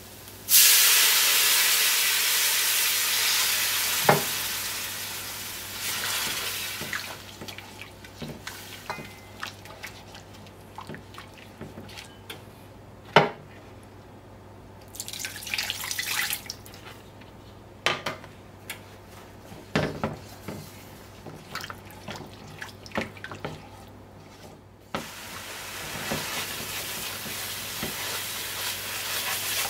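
Water poured into a hot aluminium pot of frying curry seasoning, hissing loudly at once and fading over several seconds. A silicone spoon then stirs the curry, scraping and tapping against the pot now and then. Near the end a steady sizzle of curry paste frying in the pot begins.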